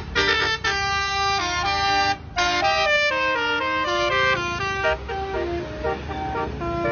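A bus's basuri telolet horn, a set of tuned horns playing a quick stepping melody of several notes at once over the low rumble of the bus. The horn notes grow fainter about five seconds in.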